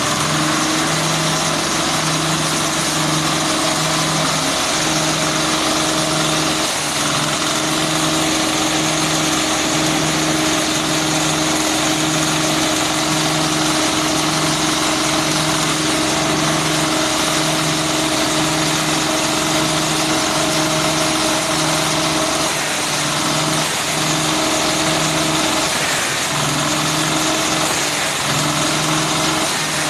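Single-cylinder diesel engine of about 7 hp driving a grass chopper, running steadily with nothing being fed, with a regular pulsing beat about once a second. Its pitch rises as it picks up speed in the first second.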